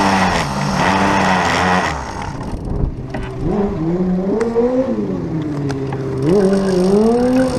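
Pocket bike's small engine running under way, then easing off as the bike comes to a stop about two seconds in. It then settles low and is blipped twice, the pitch rising and falling with each blip.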